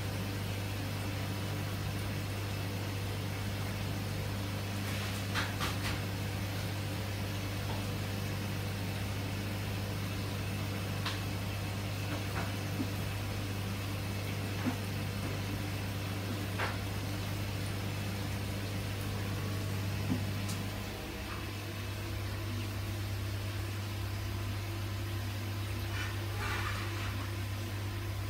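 Steady low machine hum with a few faint ticks scattered through. The hum dips briefly about three-quarters of the way through.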